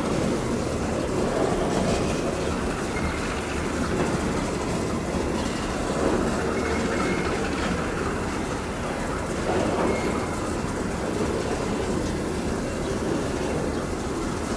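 Train of coal hopper wagons rolling slowly along the track while being shunted by a CC 201 diesel locomotive, a steady rumble of wheels on rail.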